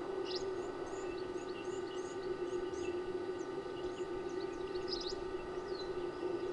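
Many small birds chirping in quick, scattered short calls, over a steady low hum.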